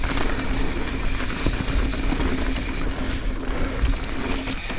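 Mountain bike running fast down a dirt flow trail: tyres rumbling over the dirt, wind on the microphone, and a steady buzz with small rattles and clicks from the bike.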